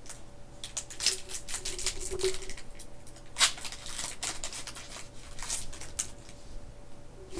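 Foil wrapper of a Pokémon Rebel Clash booster pack being torn open and crinkled by hand: irregular runs of sharp crackles and rips over several seconds.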